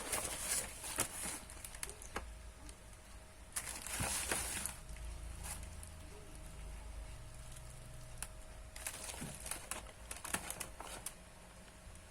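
Packaging being handled during an unboxing: crinkling and rustling in a few short bursts, with scattered clicks and taps, over a faint steady hum.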